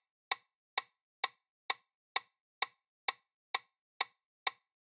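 Clock-style tick sound effect marking a quiz countdown timer, sharp even ticks a little over twice a second with silence between them.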